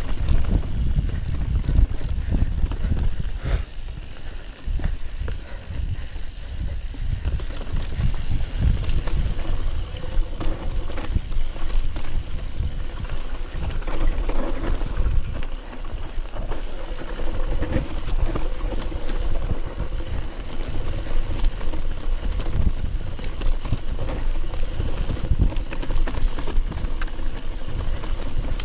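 Mountain bike descending a dirt forest trail, heard from a handlebar-mounted camera: wind buffeting the microphone, tyres rumbling over the ground and the bike rattling and knocking over bumps.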